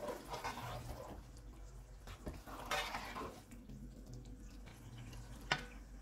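A spatula stirring thick curry gravy in a granite-coated frying pan: soft scraping and sloshing, with one sharp click against the pan near the end.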